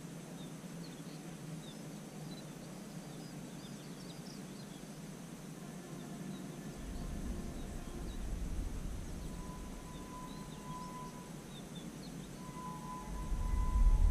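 Quiet trackside ambience: small birds chirping faintly, with a low rumble swelling briefly in the middle. Near the end a distant horn gives two long steady notes, and a low rumble starts to rise as a train approaches.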